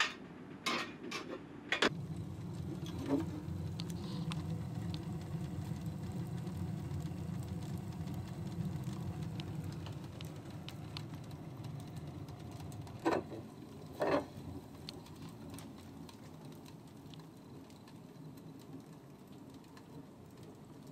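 Wood fire burning in a cast iron wood-burning stove: a steady low rumble of the fire drawing, with scattered crackles and two louder snaps about 13 and 14 seconds in. A few metal clanks near the start as the fire is stoked with a hand tool in the firebox.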